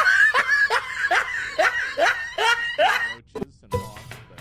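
A person laughing in a quick run of high-pitched bursts, about two a second, each rising in pitch; the laughter cuts off about three seconds in.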